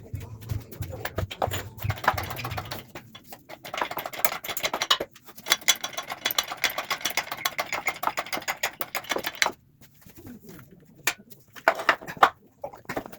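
Rapid metallic clicking and rattling from hand tools being worked on the front axle, in a long busy run that stops about nine and a half seconds in, followed by a few separate sharp clicks.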